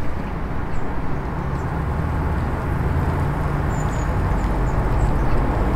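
Hot water poured in a thin stream from a stainless steel kettle onto ground coffee in a drip bag, a steady trickle over a low steady rumble.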